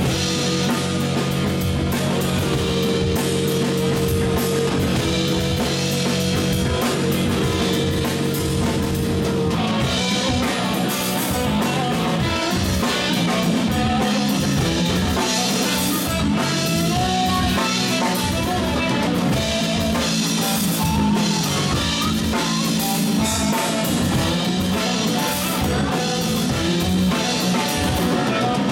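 Live rock band playing an instrumental passage on electric guitar, electric bass and drum kit. Held, sustained notes for roughly the first third give way to busier, moving guitar lines over steady drumming.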